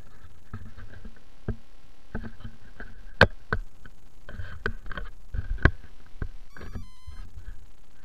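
Handling noise from a handheld camera carried on foot: irregular sharp knocks and rubbing over a low rumble, the two loudest knocks about three and five and a half seconds in.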